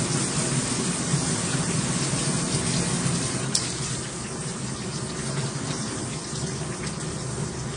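Handheld shower head spraying water on its power-stream setting: a steady rush of water, a little softer from about four seconds in.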